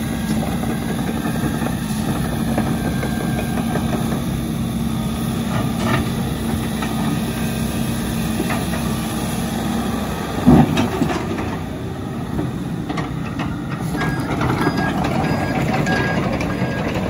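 Case CX80 zero-tail-swing excavator's diesel engine running steadily, with one loud knock about ten seconds in. Near the end a beeping alarm starts, repeating about twice a second.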